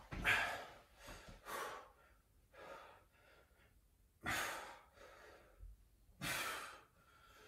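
A person breathing hard from exertion during a set of arm exercises: about five heavy, breathy exhalations a second or two apart, the strongest near the start and about four and six seconds in.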